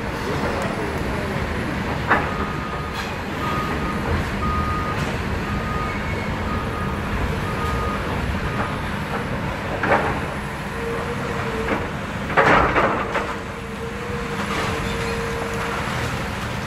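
Caterpillar excavator's diesel engine running steadily under load as it pulls apart a building, with crashes of falling debris a couple of seconds in, near the middle and, loudest, about two-thirds through. A backup alarm beeps about once a second for several seconds early on.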